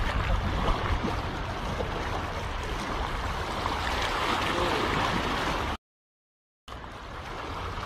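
Shallow water splashing and rushing as a hooked trevally thrashes in the wash at the water's edge. The sound breaks off completely for about a second near the end.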